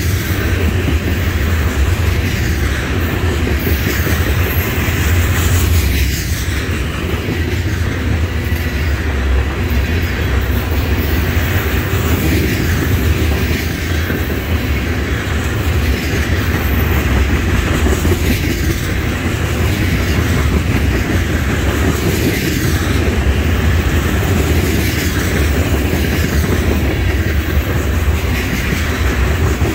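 Railroad tank cars of a freight oil train rolling past, a loud, steady rumble with repeated clicks of the wheels on the rails.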